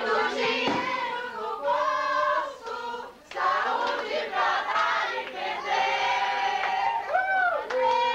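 A crowd of party-goers singing and shouting together, many voices overlapping, with some notes held. A single voice gives a rising-and-falling whoop about seven seconds in.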